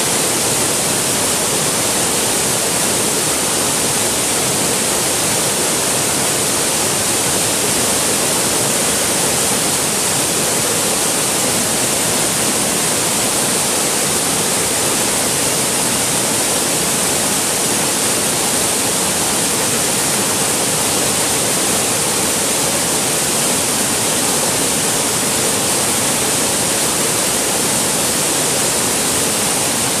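Fast mountain stream rushing in whitewater rapids over boulders: a steady, loud rush of water that does not let up.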